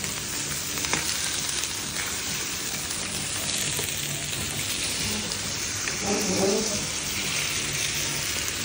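Steady, loud sizzling of thin slices of raw rib steak and eggs frying on a very hot iron sizzle plate. There are a couple of sharp clicks as eggs are cracked onto it.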